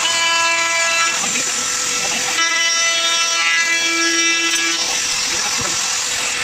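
Makita DRT50 18-volt brushless cordless compact router running and cutting along a plywood edge: a steady high whine with a stronger pitched tone that comes in during the first second and again from about 2.5 to 5 seconds in.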